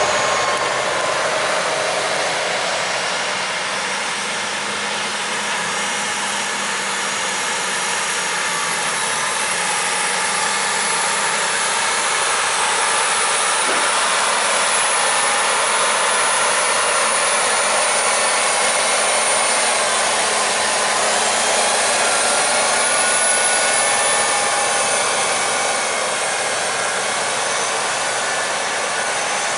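New Holland tractors with push blades running under load while packing a corn silage pile: a steady rushing machine noise with faint whines that rise and fall.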